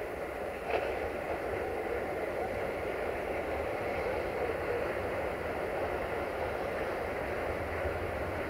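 Approaching train, a steady low rumble growing gently as it nears, with one short click about a second in.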